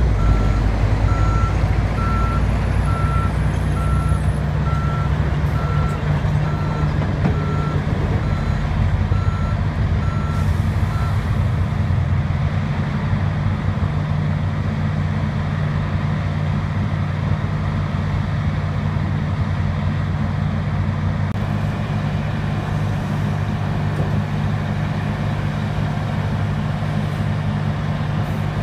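Heavy diesel engine of a Liebherr 964 crawler excavator running steadily under load as the machine tracks onto a lowbed trailer. A backup alarm beeps evenly, about one and a half times a second, and stops about eleven seconds in.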